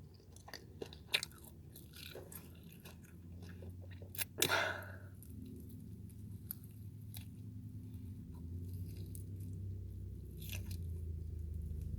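A person chewing and biting into a dry-seasoned chicken wing, with small crunches and mouth clicks and one louder crunch about four seconds in.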